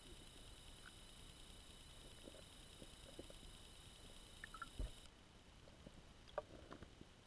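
Near silence through an underwater camera housing: faint scattered taps and knocks, with one louder dull thump a little after halfway. A faint steady high-pitched whine cuts off suddenly about five seconds in.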